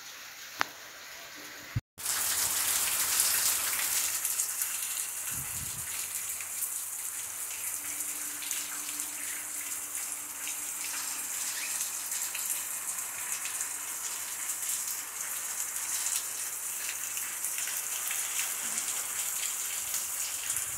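Steady rain falling, a dense patter of drops that starts abruptly about two seconds in. Before it, quieter rainwater running from a gutter pipe into a cistern, with one sharp click.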